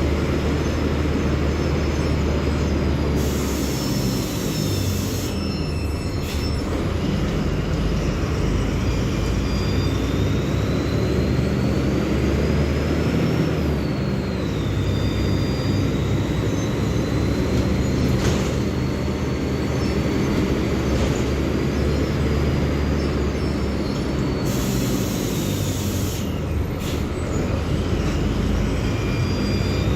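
Mercedes-Benz OF-1724L city bus's Bluetec 5 diesel engine running under way, with a high whine that climbs as it pulls through a gear and drops at each shift. Twice there is a burst of hiss lasting about two seconds.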